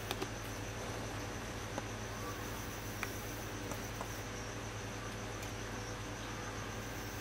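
Steady low electrical hum and hiss with a thin, constant high-pitched whine, broken by a few faint short ticks.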